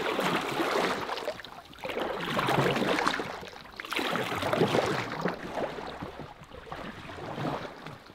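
Oars rowing an inflatable boat: the blades splash and swish through the water in strokes about every two seconds, with water dripping off the blades.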